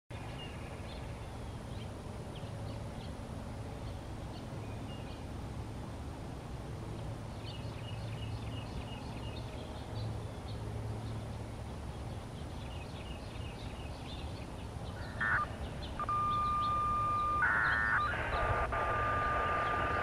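Small birds chirping over low background hum. About 15 seconds in, a radio scanner crackles open and a loud, flat, steady beep tone starts, broken near the end by a patterned burst and hiss: siren activation tones received over the scanner before the siren starts.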